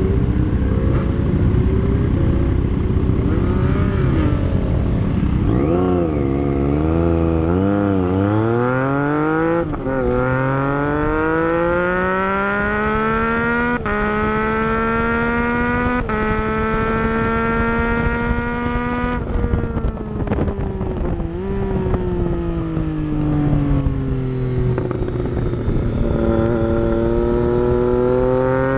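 Triumph Street Triple's three-cylinder engine heard on board, revs climbing hard through several quick upshifts. The revs then fall away and build again near the end, with wind rushing over the microphone throughout.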